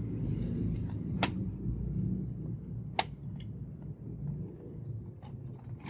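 Sharp plastic clicks from a Canon MG2570S printer's ink cartridges and carriage as the cartridges are unclipped by hand: two clear clicks, about a second in and about three seconds in, then a few softer ticks near the end, over a steady low hum.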